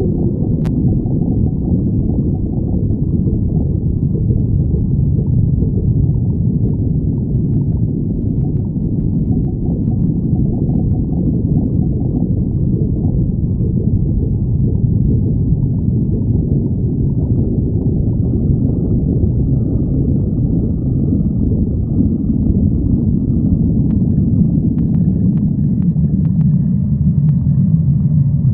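Stomach growling: a continuous low growl with no breaks, faint higher-pitched tones joining in during the last third.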